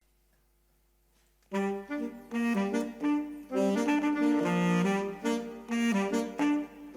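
Near silence for about a second and a half, then a saxophone trio starts playing together in harmony: short phrases with brief breaks between them.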